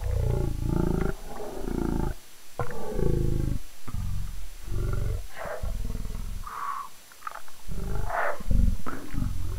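Garbled, heavily distorted voice audio, pitched very low and breaking up into chunks with short dropouts, so that it sounds more like growling than words; the uploader says the video's audio was corrupted in upload.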